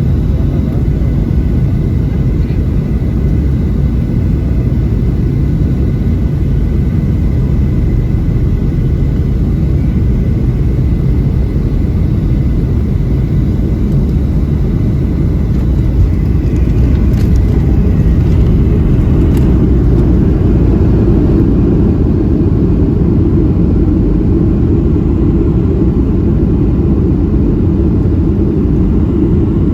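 Steady low cabin rumble of a Boeing 737-700 in flight, engine and airflow noise heard from inside the passenger cabin. Faint steady tones sound over it in the first half. A few sharp clicks come about two-thirds of the way in, after which the rumble grows somewhat louder.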